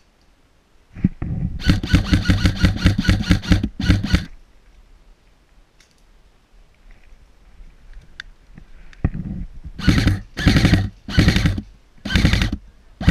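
Airsoft gun firing close by: a quick string of about a dozen shots, then, some six seconds later, four short bursts of rapid fire.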